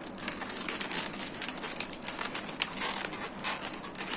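Latex modelling balloon being twisted and handled, the rubber rubbing on itself in an irregular run of short crackly clicks.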